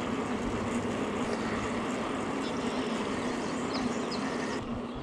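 Steady rushing noise of riding a bicycle along a trail: wind on the microphone and tyres rolling, with a faint steady hum.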